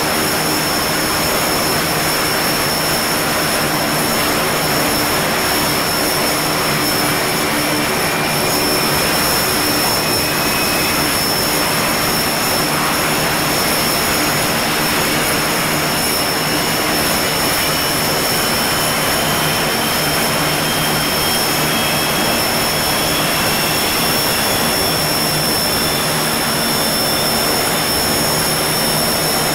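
Antonov An-26's Ivchenko AI-24 turboprop engines running on the ground with their four-bladed propellers turning: a steady high turbine whine over a low, even propeller drone. A faint whistle slowly rises in pitch through the second half.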